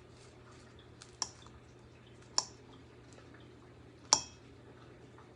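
A knife slicing a banana, tapping sharply on the cutting surface three times, about a second or more apart.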